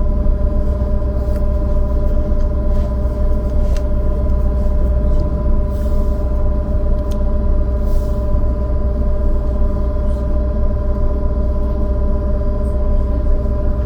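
Trolleybus running: a steady low rumble with a constant electrical whine of several steady tones, and a few faint clicks.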